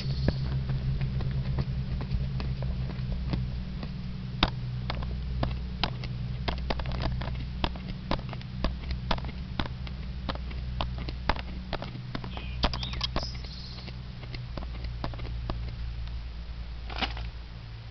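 Camera autofocus motor clicking sharply and irregularly over a steady low hum, with faint bird chirps briefly about two-thirds of the way through.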